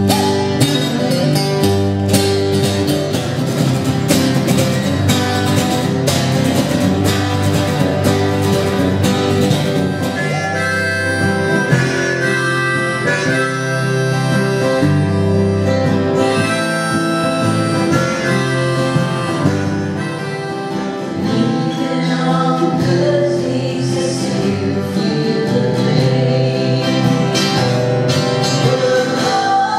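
Acoustic guitar strummed with a harmonica played over it from a neck rack.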